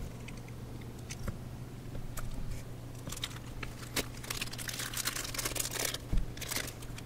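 Thin clear plastic parts bag crinkling in the hands and being torn open, a run of sharp crackles that gets densest about halfway through.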